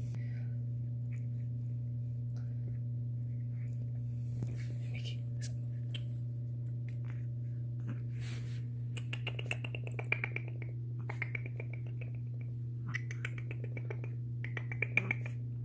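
Shih Tzu puppy chewing a rubber panda toy, her teeth clicking and scraping on it in quick clusters of clicks with short squeaky sounds from about nine seconds in. Under it runs a steady low hum.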